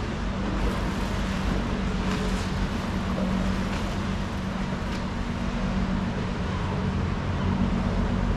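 Steady low hum of a motorboat engine running, over general outdoor background noise.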